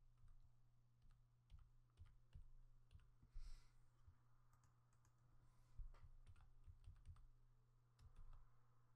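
Faint computer keyboard typing: irregular, uneven keystrokes, with a short hiss a few seconds in.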